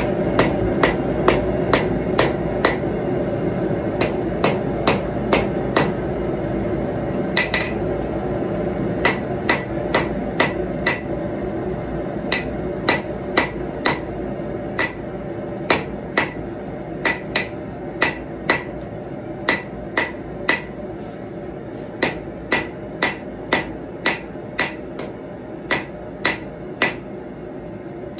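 Hand hammer striking red-hot knife steel on an anvil: short runs of sharp blows with a metallic ring, about two to three a second, with brief pauses between runs, while drawing out the choil and ricasso around an integral guard. A gas forge runs steadily underneath.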